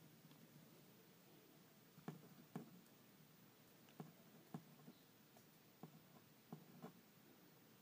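Near silence: a pen writing on paper, heard only as faint, irregular light taps, about eight of them, from about two seconds in.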